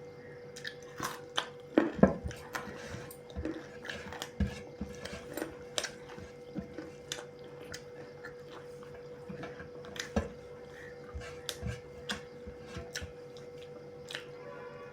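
Eating noises: irregular small clicks and smacks of chewing and of utensils on a plate, over a faint steady hum.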